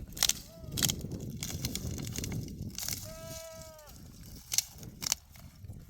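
Livestock bleating: a short call near the start, then one long steady bleat about three seconds in. Several sharp snaps or knocks sound around it.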